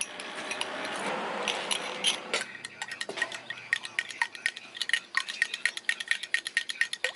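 Milk poured in a thin stream into green tea in a glass measuring cup, then a metal spoon stirring it briskly, clinking against the glass several times a second.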